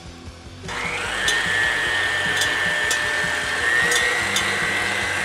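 Electric stand mixer switched on after about half a second, its motor whining up to speed and then running steadily, with a slight rise in pitch near the end, as it whips egg whites in a stainless steel bowl.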